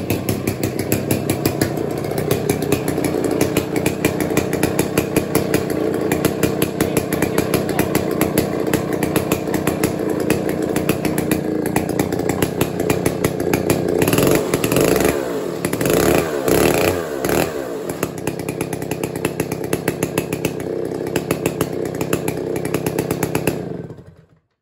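Stihl 090 vintage 137cc two-stroke chainsaw running loudly with a rapid, even firing beat, revved up and down a few times about halfway through, then settling back before the sound cuts off just before the end.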